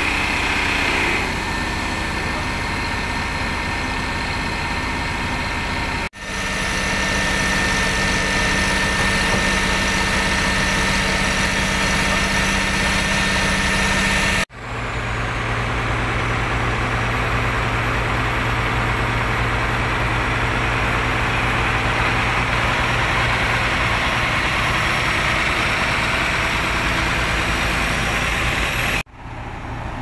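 JCB JS200 tracked excavator's diesel engine running steadily with its hydraulic pump loaded, a rough drone the owner calls snoring badly, the pump very rough. The sound breaks off abruptly twice, about six and fourteen seconds in, and again just before the end, each time resuming at a slightly different pitch.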